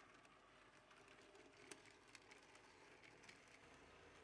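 Near silence: faint room hiss with a few soft, sparse clicks from a narrow-gauge model railcar's wheels running over the turnouts.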